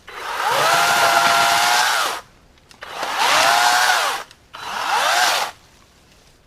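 Battery-powered 40-volt electric chainsaw triggered three times in a row. Each time the motor and chain whine up to speed, hold a steady pitch, then wind down when the trigger is released; the first run is the longest, the last the shortest.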